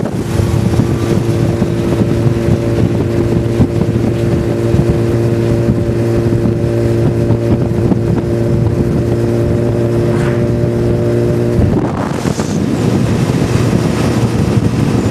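Motorcycle engine running at a steady cruising speed, heard from a moving motorcycle, with wind noise on the microphone. About twelve seconds in the steady engine note breaks off abruptly, giving way to a rougher mix of engine and wind noise.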